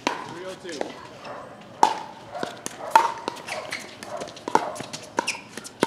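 Pickleball paddles striking the hollow plastic ball in a doubles rally: a string of sharp, ringing pops about one to one and a half seconds apart.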